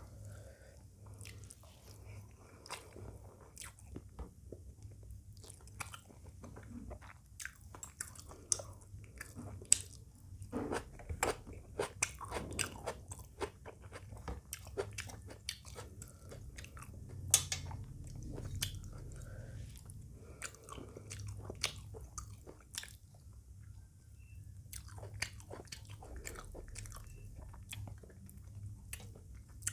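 A person eating close to the microphone: chewing and biting into chicken curry with rice and raw salad, with crunchy bites and many small irregular mouth clicks.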